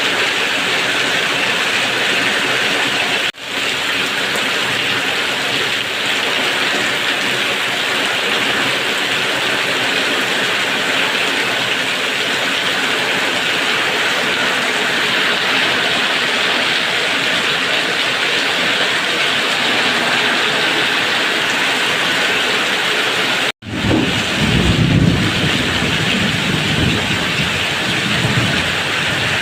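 Heavy rain falling steadily, a dense continuous hiss. It cuts out abruptly twice, about three seconds in and near the end. After the second cut, a low rumble rises and fades over a few seconds.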